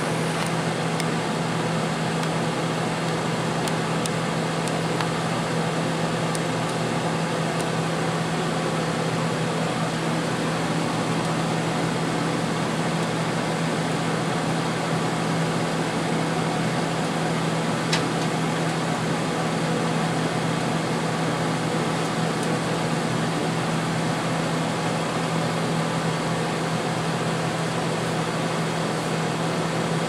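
Whirlpool-built Hampton Bay 25-pint dehumidifier running steadily: its reciprocating compressor hums under the rush of the fan drawing air through the coil. The compressor is still building head pressure after start-up, its power draw slowly climbing.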